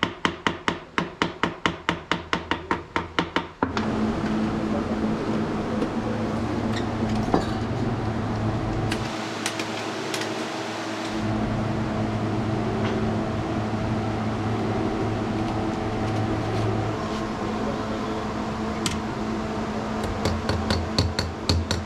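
Rapid, even tapping on metal, about six strikes a second, as a sewing machine head is worked on with a small hammer. The tapping stops after a few seconds and a steady hum takes over, and the tapping comes back near the end.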